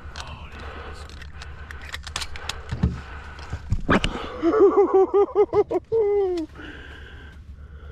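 Quacking: a rapid run of short quacks, about eight a second, ending in one longer falling note, heard over low wind rumble on the microphone. A sharp knock comes just before it.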